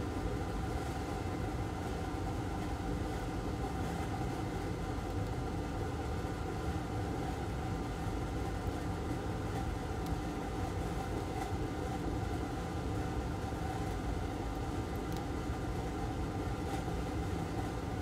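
Steady machine hum with a few held tones and a faint hiss, unchanging throughout.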